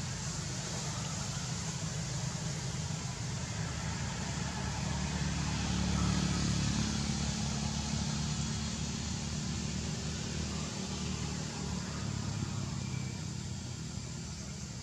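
Steady low rumble with a hiss above it, a little louder around six seconds in.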